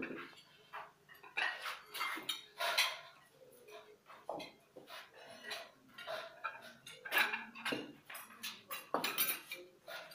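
China plates and cutlery clinking as used dishes are collected and stacked on a tray, with a fork scraping on a plate; the clinks come irregularly throughout.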